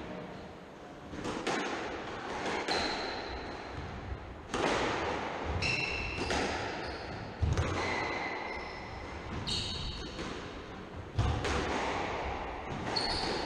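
Squash rally: the ball hits rackets and the walls in a string of sharp knocks, the two loudest about halfway through and near the end. Between the hits are short high squeaks from the players' shoes on the wooden court floor.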